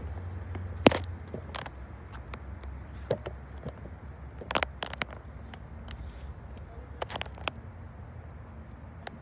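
Low steady rumble of a bi-level passenger train moving off into the distance, with scattered sharp clicks and crunches from the handheld camera being moved.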